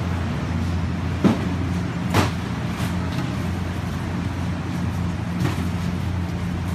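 Steady low machinery hum with a few sharp knocks of plastic crates being handled: two about a second and two seconds in, a softer one past five seconds.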